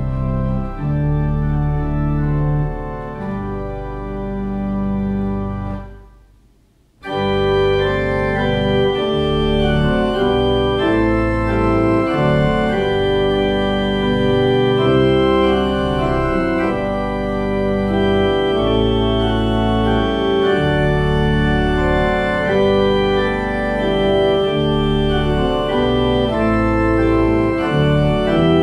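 Organ playing a hymn tune in sustained chords. About six seconds in, it dies away and pauses for about a second, as at the end of a verse, then comes back in louder.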